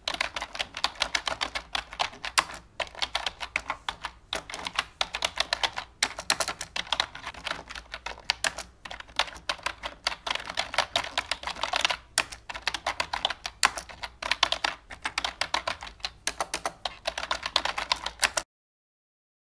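Rapid typing on a computer keyboard: a dense stream of fast, uneven key clicks with brief pauses, cutting off suddenly near the end.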